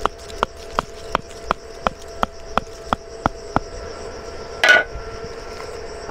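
A stake being hammered into the ground with quick, even blows, nearly three a second, ending about three and a half seconds in. A short, louder scrape follows about a second later.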